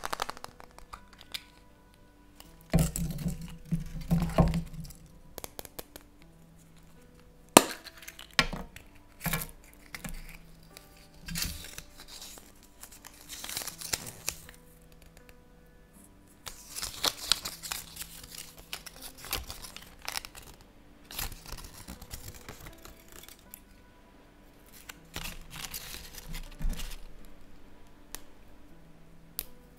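Hands cracking open a chocolate surprise egg, then rustling a paper insert and clicking small plastic toy parts together. A string of irregular cracks, crinkles and clicks, the loudest a cluster of cracks a few seconds in, over faint background music.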